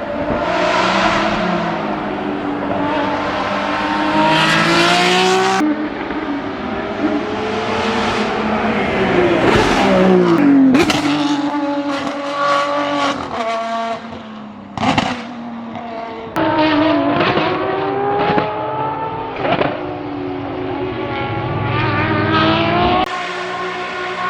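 Ferrari 599XX's naturally aspirated V12 at high revs on track: several hard accelerations with the pitch climbing steeply, a couple of falling sweeps as the car runs down through the gears or goes past, and short sharp blips. The sound changes abruptly a few times between separate runs.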